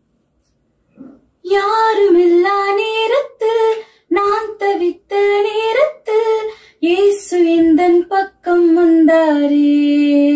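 A young female voice singing a Tamil Christian song unaccompanied, coming in about a second and a half in, in short phrases with brief breaks, and ending on a long held note.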